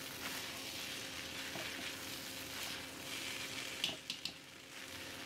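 Hakka noodles sizzling in a hot wok as they are stir-fried and tossed with a spatula, near the end of cooking just after soy sauce went in. A few sharp clicks of the spatula on the pan come about four seconds in.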